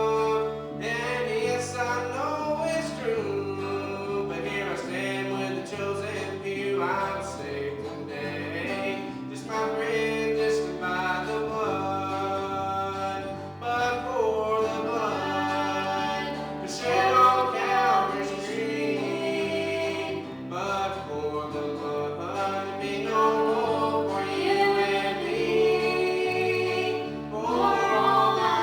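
Gospel music: voices singing over instrumental backing with a moving bass line.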